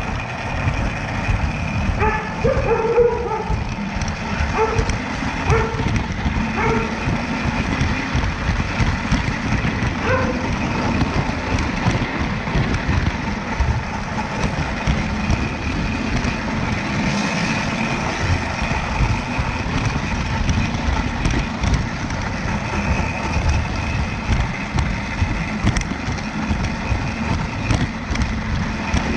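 Lionel Standard Gauge model train running along its track right under the camera: a steady rumble of the wheels and motor with rapid clicking from the wheels on the rails.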